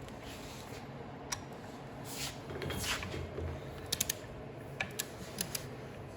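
Wrench tightening bolts on a Kawasaki FD620D engine: scattered sharp metallic clicks, including a quick run of three about four seconds in, and two short rasping sounds of the tool being worked.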